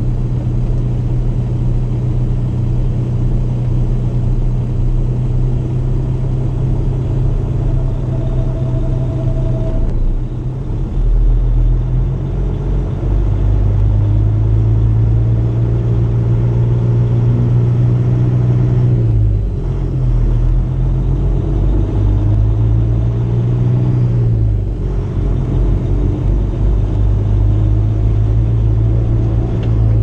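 Semi truck's diesel engine running steadily from inside the cab as the truck rolls at low speed. Its note changes about a third of the way in and dips briefly twice in the second half.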